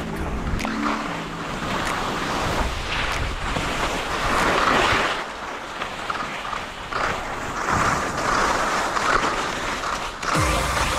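Skis scraping and hissing over rippled, sun-cupped spring snow on a fast downhill run, swelling and fading with each turn, with wind noise on the microphone.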